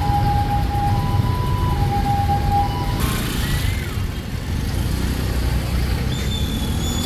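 Street traffic: a steady low rumble of vehicles going by, with a pair of tones alternating over it for the first few seconds.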